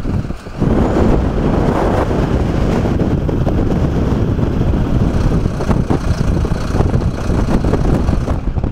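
Storm wind buffeting the microphone: a loud, steady low rumble that dips briefly about half a second in.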